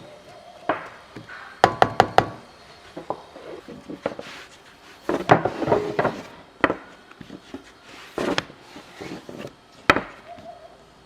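A series of irregular knocks and clatters: four quick sharp knocks about two seconds in, a busier clatter around the middle, then single knocks spaced out toward the end.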